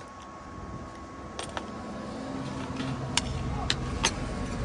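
A low engine hum from a vehicle grows steadily louder. A few sharp clicks and knocks are scattered over it.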